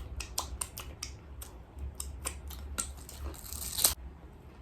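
Close-miked crunching of crispy fried chicken being bitten and chewed: a rapid, uneven run of sharp crackles, with a denser, louder crackle just before four seconds in.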